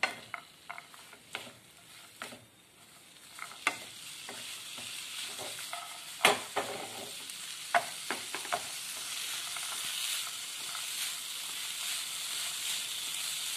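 Wooden spatula scraping and tapping against a nonstick frying pan as grated potato and green peas are stirred in butter and oil. A frying sizzle builds steadily louder from about four seconds in.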